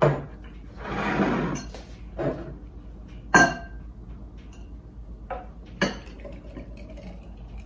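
Glass clinking and knocking as a glass mixing bowl and glass mason jars are handled and set against each other on a countertop: several separate sharp clinks, the loudest and most ringing about three and a half seconds in.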